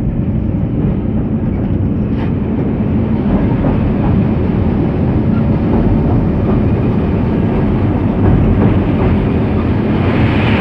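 Passenger train crossing a steel girder railway bridge, heard from the locomotive cab: a steady, loud running rumble of the wheels on the rails and the locomotive.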